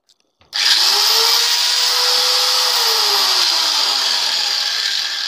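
INTERTOOL angle grinder switched on about half a second in, its motor spinning up with a rising whine and then running free, not cutting anything. It starts to wind down near the end.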